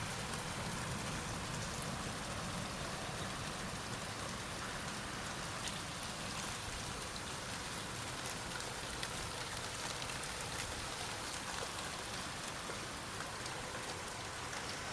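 Steady rain falling, with occasional single drops ticking close by.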